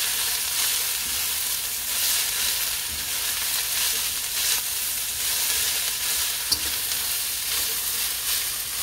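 Shredded cabbage and carrots sizzling steadily in a hot wok while being stirred and tossed with a spatula, with one sharp click of the utensil about six and a half seconds in.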